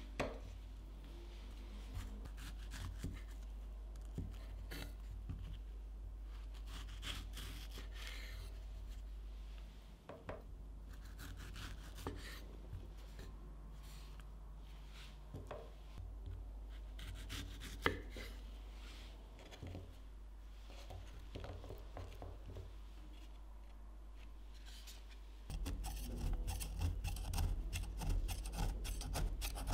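Knife slicing fresh strawberries on a bamboo cutting board: separate soft cuts and knocks of the blade on the wood. Near the end it turns abruptly to a louder, quick rasping as a knife blade is drawn around the inside of a steel cake ring through a cocoa sponge.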